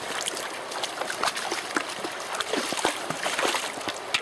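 Shallow river running over stones, with small splashes and knocks as a netted brown trout is handled in the water.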